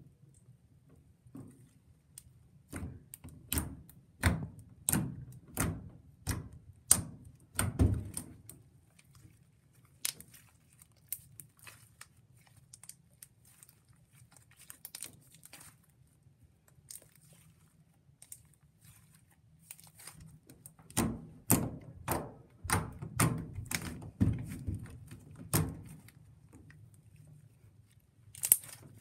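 Slime being squished and poked by hand, a run of sharp wet clicks and pops. The clicks come thick for a few seconds near the start, thin out, and come thick again about 21 seconds in.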